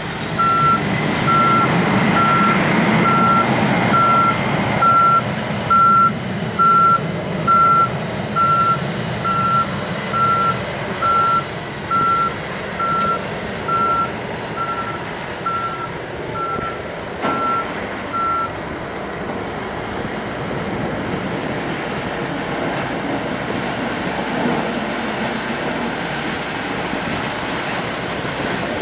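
A vehicle's reversing alarm beeping a single high tone a little faster than once a second, growing fainter and stopping about two thirds of the way through. Underneath, the steady rumble of a Boeing 767-200F's jet engines at takeoff power as the freighter rolls down the runway.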